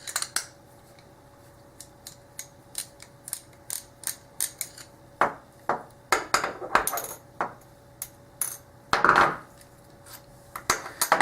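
Phillips screwdriver working the screw out of a padlock body: a run of small metallic clicks and clinks, with a few louder knocks of metal parts.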